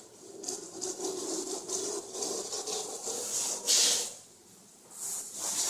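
A screed or trowel scraping through wet self-leveling underlayment on a concrete floor in a series of short strokes, the loudest about four seconds in.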